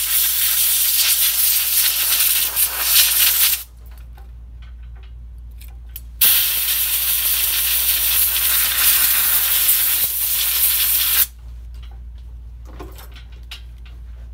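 Compressed air blowing dust out of a PS4 power supply in two long bursts of hiss: the first stops about three and a half seconds in, and the second runs from about six to eleven seconds.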